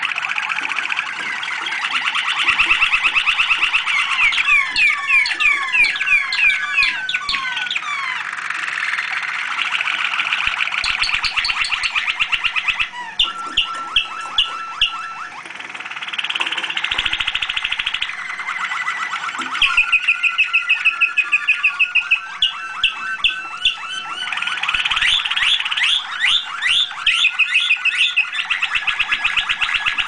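Domestic canaries singing: a continuous song of rapid trills and rolling, fast-repeated notes that switches to a new trill every few seconds.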